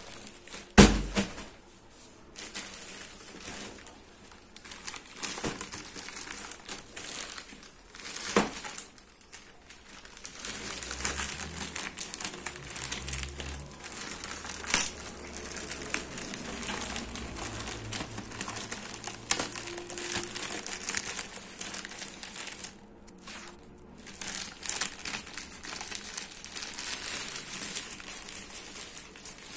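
Plastic packaging crinkling and rustling as a shrink-wrapped backpack is pulled out of a plastic mailer bag and handled. There is a sharp knock about a second in and another about eight seconds in.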